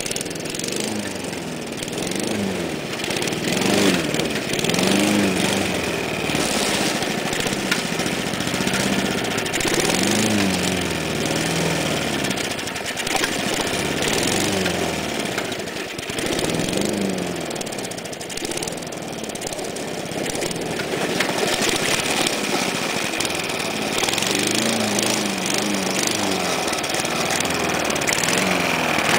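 Small lawnmower engine running and being revved up and down again and again through a hand throttle cable on its governor arm, the pitch rising and falling every second or two, with a steadier stretch about two-thirds of the way in. The engine has no idle and holds open because its throttle spring is stretched.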